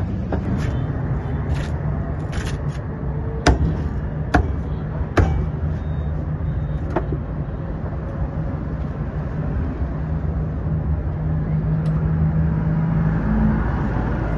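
Steady street traffic hum with a motor running, and three sharp knocks a few seconds in.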